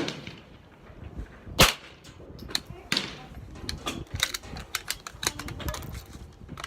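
Gunfire: a string of sharp, irregularly spaced shots. The loudest comes about one and a half seconds in, with quieter cracks between.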